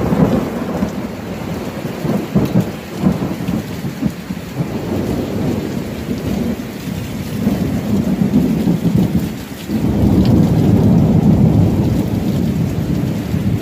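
Heavy thunderstorm downpour with wind, the rain beating directly on the recording phone over a low rumble; it grows louder about ten seconds in.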